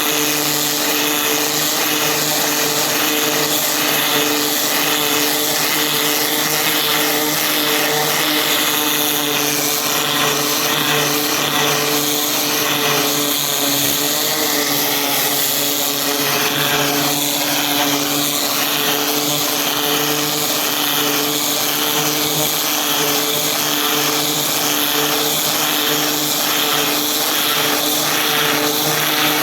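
Upholstery dry-cleaning equipment running steadily: a constant motor hum under loud rushing, hissing air, with faint regular strokes in the second half.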